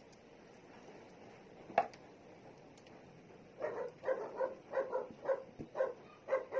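A dog barking in a rapid run of short barks, about two a second, starting about halfway through. A single sharp click comes a little earlier.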